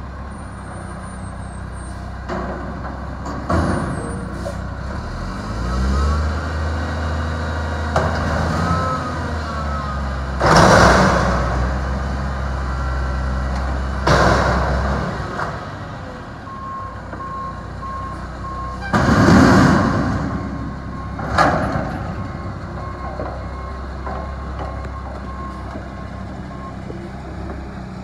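Mack front-loader garbage truck emptying a dumpster. The diesel revs up as the hydraulic forks raise the dumpster over the cab, with loud crashes as the trash drops into the body and the bin is shaken, about 10 and 14 seconds in, and two more as it is lowered and set down. A backup alarm beeps steadily through the second half.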